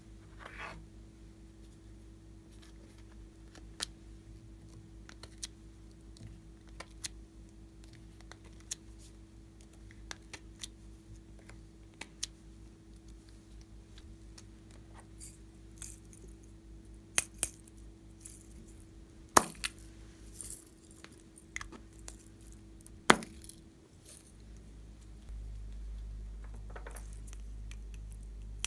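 Scattered light clicks and clinks of small hard pieces being set down on and against a glass dish, with a few sharper knocks about two thirds of the way through, over a faint steady hum.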